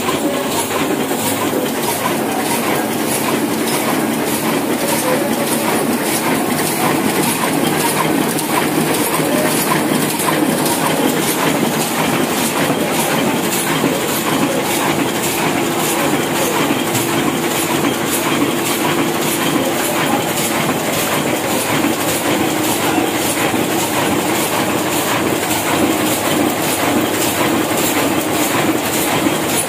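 An old Hashimoto sheetfed offset printing press running at speed: a steady mechanical clatter with an even, repeating clicking as the sheets are fed, printed and delivered.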